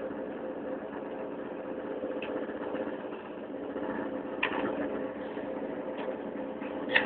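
Engine of a towing vehicle running steadily at low speed, a constant low hum, with a few short knocks and rattles.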